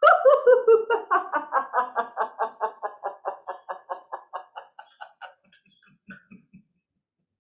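A woman's pretend sneeze breaking into a long laugh: a falling cry, then a steady run of 'ha-ha-ha' at about five a second that slowly fades out about five seconds in, with a few soft chuckles after.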